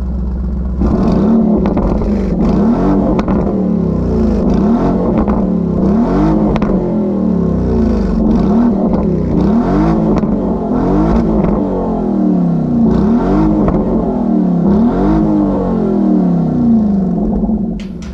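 Lamborghini Urus SE's 4-litre twin-turbocharged V8 at a standstill: idling, then from about a second in revved again and again, each rev rising and falling back within about a second, before settling back down near the end.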